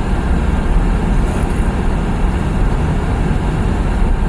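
Steady low road and engine rumble heard inside a car's cabin while it drives on snow-covered roads.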